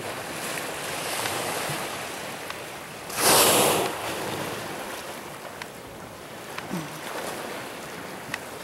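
Humpback whale surfacing and blowing: one loud rushing exhalation about three seconds in, lasting under a second, over the steady wash of sea water.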